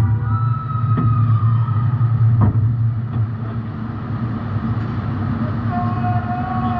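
A compact demolition-derby car's engine running steadily, with two sharp knocks, one about a second in and one about two and a half seconds in. Faint thin steady tones sound over it.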